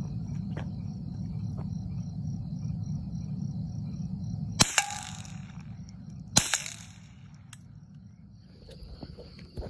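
Two gunshots about two seconds apart, each followed by a short echo, over a steady low rumble.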